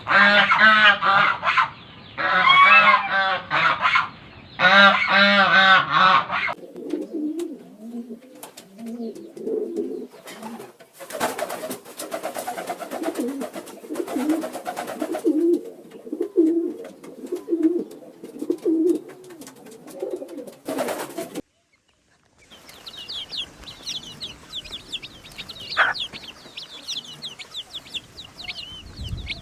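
A run of farmyard bird calls. For the first six seconds there are loud, closely repeated calls. Then comes a long stretch of low, rhythmic cooing. After a short break near the end, many short, high-pitched chirps.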